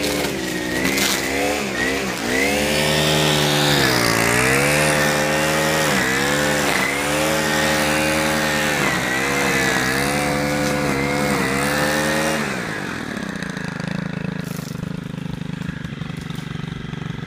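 Stihl FS 90 R string trimmer's small 4-MIX engine running at high revs, its pitch rising and dipping repeatedly as the throttle is worked while cutting. About twelve seconds in it drops back to a lower, steadier idle.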